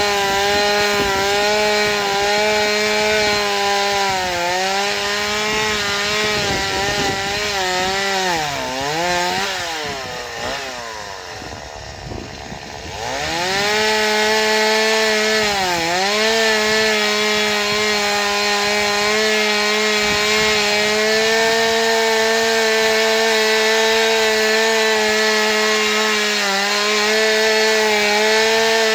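Stihl MS 180 two-stroke chainsaw running at high revs while cutting, with its pitch dipping briefly about 4 seconds in. From about 8 to 13 seconds in the revs fall and the sound goes quieter; then the engine revs back up, dips once more, and runs steady at full speed to the end.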